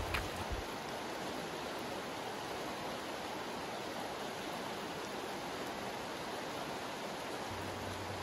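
Fast-flowing forest creek rushing steadily over a stony bed.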